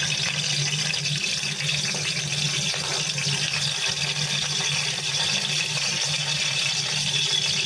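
Whole spices (cinnamon, cloves, star anise) sizzling steadily in hot oil in a pan, with a steady low hum underneath.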